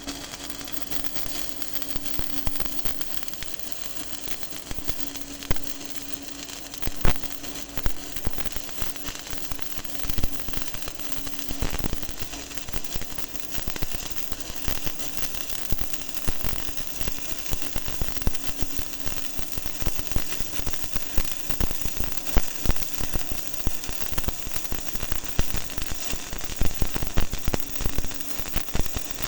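Stick (SMAW) welding arc on rebar and steel plate, crackling steadily with dense rapid pops over a hiss, with a faint steady hum underneath.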